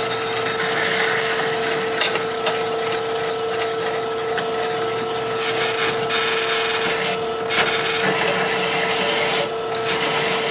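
Drill press running with a steady hum while a hole saw cuts into steel plate: an uneven scraping rasp with scattered clicks from the teeth and chips.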